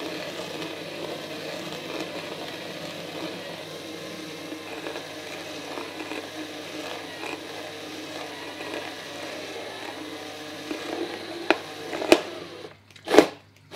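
Cordless drill running at slow speed, its spade bit boring a 30 mm hole through a thin plastic tub lid: a steady whir with the scrape of the bit scoring the plastic. The drill stops near the end, with a couple of sharp knocks.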